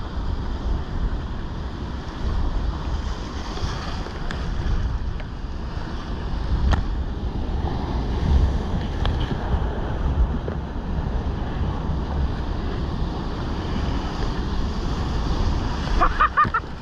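Surf breaking and rushing in white water around a sea kayak among rocks, with wind buffeting the action camera's microphone as a heavy rumble.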